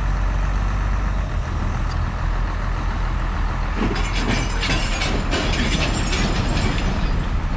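A heavy diesel engine running steadily at low revs. About four seconds in, a dense crackling, hissing noise joins it for around three seconds.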